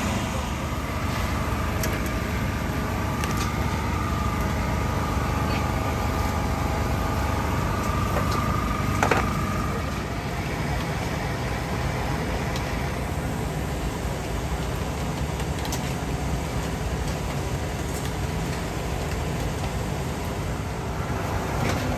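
Steady low rumble of street traffic around an outdoor market, with a faint steady whine through the first half and a sharp click about nine seconds in.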